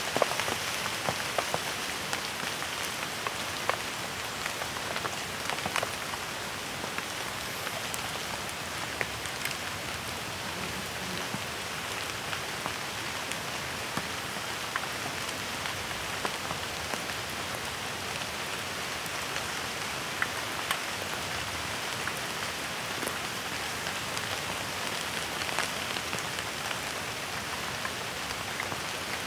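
Steady rain falling, with scattered sharper drop hits through it.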